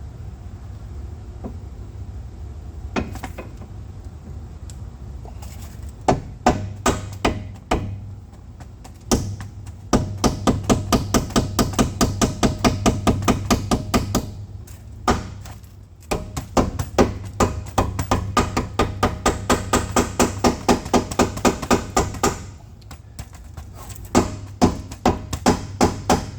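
Hammer blows driving a new control arm's ball joint up into the hub: sharp metallic strikes at about three to four a second, in runs of several seconds with short pauses, over a steady low hum.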